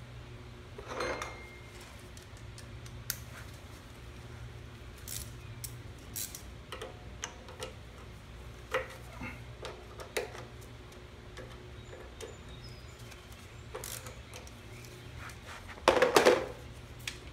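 Scattered light metallic clicks and clinks of a wrench working the bolts on a lawnmower engine's air box, with a louder clatter lasting about a second near the end.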